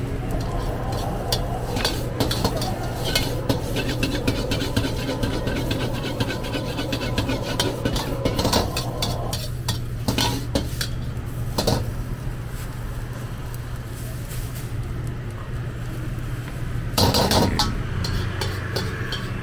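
Metal ladle scraping and clanking rapidly against a carbon-steel wok as food is stir-fried, over a steady low hum. The clanking thins out in the second half, and a brief louder rush of noise comes near the end.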